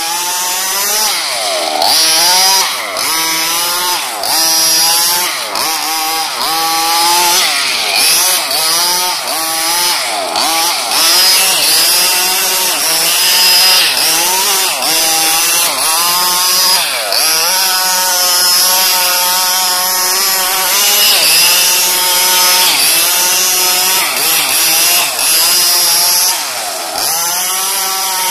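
HPI Baja RC car's 28.5cc two-stroke petrol engine running hard, its pitch rising and falling again and again as the throttle is opened and closed.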